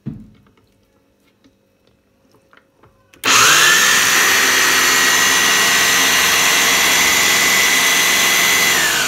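Electric mixer grinder driving a citrus-juicer reamer, after a short knock at the start: the motor is switched on about three seconds in and climbs quickly to a loud, steady whine as a halved sweet lime is pressed onto the spinning cone. Near the end the whine starts to drop in pitch.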